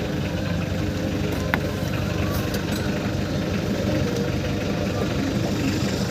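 Hyundai Grace van's diesel engine idling steadily after a cold morning start, running smoothly on a newly replaced fuel filter; the old, long-unchanged filter had caused the hard starting.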